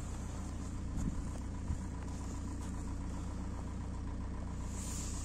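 Ford Mondeo mk4's 1.8 TDCi four-cylinder turbodiesel idling steadily, still warming up after a winter cold start.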